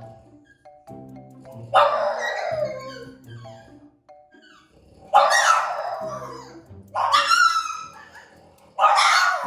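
French bulldog barking in protest at being left behind, four loud drawn-out barks about two, five, seven and nine seconds in, over background music.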